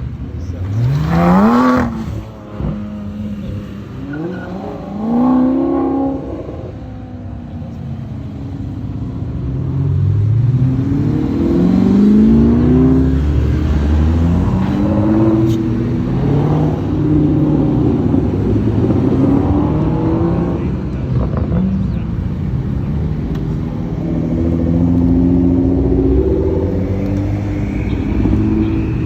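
A succession of car engines accelerating away one after another, each exhaust note rising in pitch through the revs. There is a sharp, quick rev about a second in, another around five seconds, then several cars accelerating in overlapping pulls.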